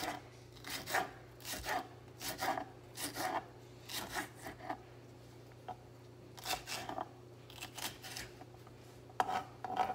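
Kitchen knife slicing a red bell pepper into strips and pieces on a wooden cutting board: a series of short cutting strokes, each ending on the board, about one a second, with a pause of a second or so midway.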